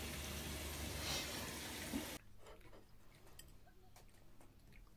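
Steady background hiss with a low hum that cuts off abruptly about two seconds in. What follows is much quieter room tone with a few faint small clicks.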